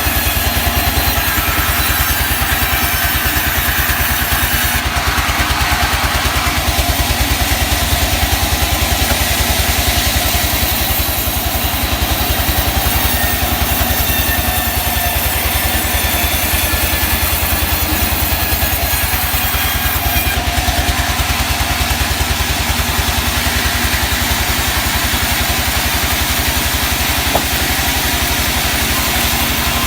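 Sawmill engine running steadily with a fast, even firing rhythm. A higher hiss strengthens about five seconds in and eases off about twenty seconds in.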